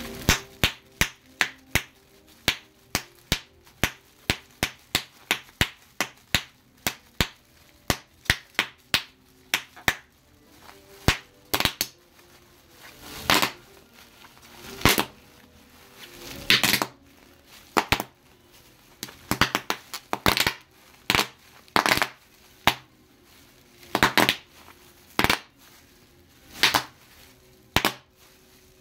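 Plastic bubble wrap popped by hand, bubble by bubble. Sharp pops come about two or three a second for the first ten seconds, then louder and further apart, with the plastic crinkling between some of them.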